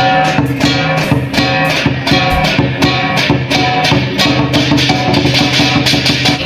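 Background music led by a strummed guitar over a steady, quick beat.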